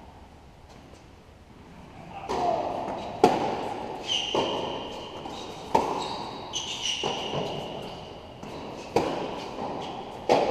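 Tennis rally in an indoor tennis hall: about six sharp racket-on-ball hits, roughly one every second and a half, starting about two seconds in and echoing off the hall. A few high, drawn-out squeaks run between the hits.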